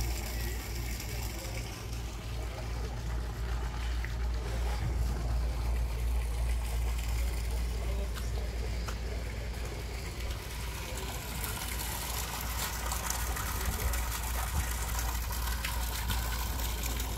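Water pouring from a moored boat's hull discharge outlet and splashing onto the harbour water, growing stronger in the second half, over a steady low rumble.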